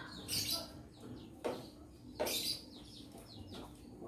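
Small birds chirping, short quick high notes that slide downward, with a few brief noisy bursts in between.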